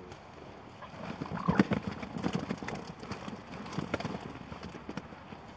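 Irregular knocks and clatter of fishing tackle being handled, starting about a second in and thinning out a few seconds later.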